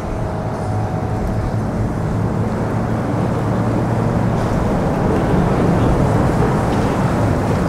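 Outboard motor of a flats boat running at speed, together with the rush of its hull and spray on the water. It grows gradually louder as the boat approaches.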